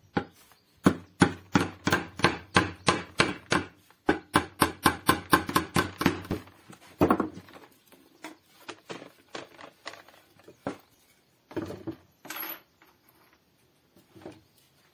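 Hammer tapping a nail to punch holes in clear plastic trays on a wooden bench: a quick run of light strikes, about three a second and then about five a second, followed by one louder knock and a few scattered lighter taps.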